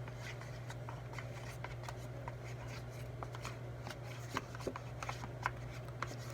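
Light, scattered clicks and rustles of hands handling and mixing slime ingredients and containers, over a steady low hum.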